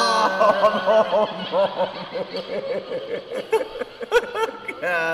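Men laughing in a quick string of short chuckles.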